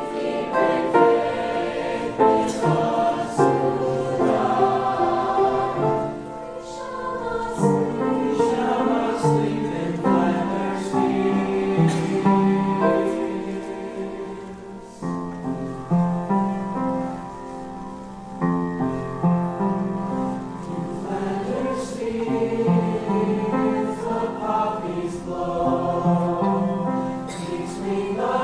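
Mixed choir singing in parts, holding sustained chords, with a softer passage about halfway through.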